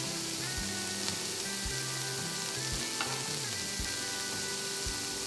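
Buttered bread toasting on a hot griddle, giving a steady sizzle, with soft background music underneath.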